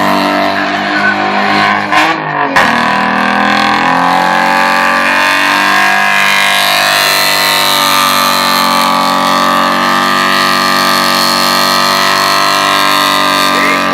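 Six-cylinder engine of a VL Commodore held at high revs during a burnout, its pitch steady and wavering only slightly, with a brief break in the revs about two seconds in.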